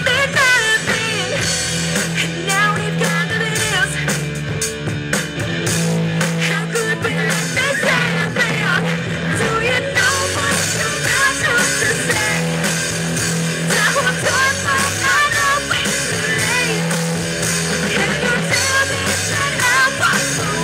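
A live rock band playing through a PA: electric guitar, bass guitar and drums, with a woman singing.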